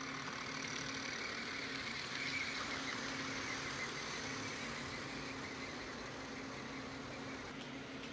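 Two electric model trains running on track, a Bemo HOm Rhaetian Railway Re 4/4 II and a Trix HO DB Class 185: a steady hum of small motors and wheels on the rails. It grows a little louder about two seconds in as the trains pass close.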